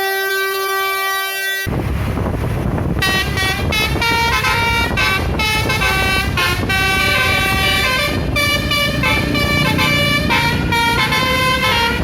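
A bus's 'basuri' musical air horn (telolet horn) holding one note, then playing a fast tune of short notes. From about two seconds in, the bus's engine and road noise rumble loudly underneath.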